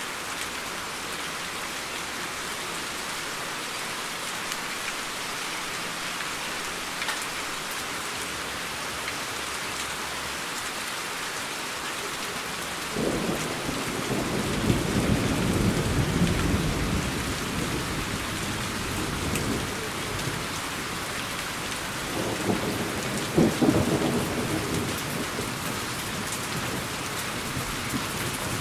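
Steady rain hiss, with a roll of thunder that starts suddenly about halfway through and fades over several seconds. A second rumble with a couple of sharp cracks follows near the end.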